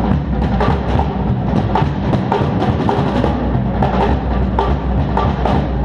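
A drum kit played fast, a dense run of strokes with a heavy low end, picked up by a GoPro HERO3 Black's built-in microphone.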